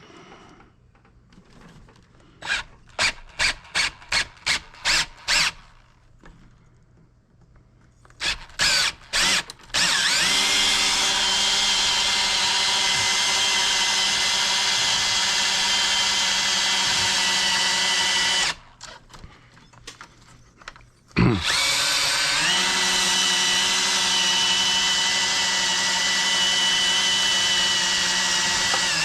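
Motor of a power tool used to strip scrap wire, worked on a thick, long piece. First a string of short on-off blips, then a steady run of about eight seconds. After a brief stop it spins up with a rising pitch and runs steadily again.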